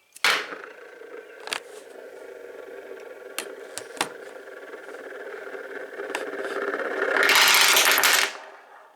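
A padlock spun on a hard surface, rattling steadily with a few sharp clicks, then clattering louder as it wobbles down and stops abruptly about eight seconds in.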